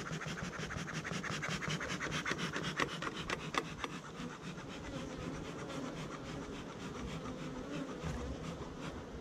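Honeybees buzzing steadily around an open hive. Over the first four seconds there is a rapid run of fine scratchy clicks.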